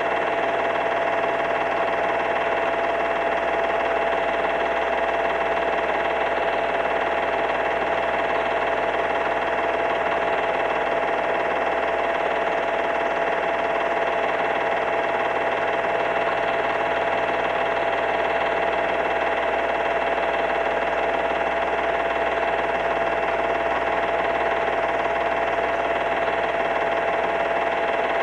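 Steady whine and hiss of a film projector motor running while home-movie reels are played back, unchanging throughout with several fixed tones in it.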